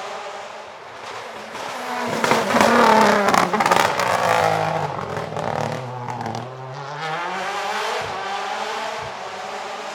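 Rally car engine passing close at speed. It is loudest a few seconds in, with a few sharp cracks at the peak. Its pitch then falls and rises again as it goes away.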